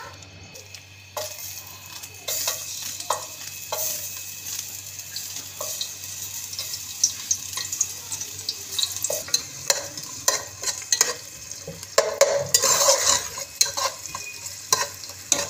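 Sliced onions sizzling in hot oil in a metal pot, the hiss setting in about a second in, with a spoon knocking and scraping against the pot as they are stirred, busiest near the end.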